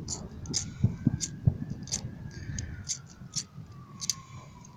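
Scattered sharp firework cracks and pops, irregular, with a faint tone sliding slowly down in pitch behind them.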